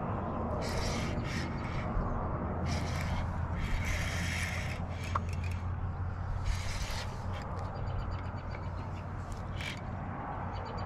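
Baitcasting reel cranked in repeated short bursts while a hooked striped bass is fought on a bent rod, over a steady low hum.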